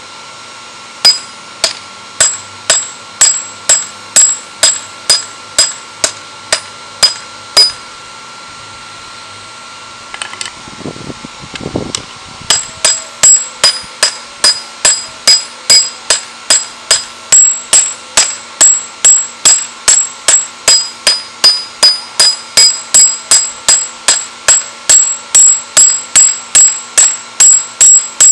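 Ball-peen hammer forging a hot steel spear head on a steel block anvil, each blow ringing, in a steady rhythm of about two strikes a second. The hammering stops for a few seconds about a third of the way in, with a brief low rumble, then starts again slightly faster.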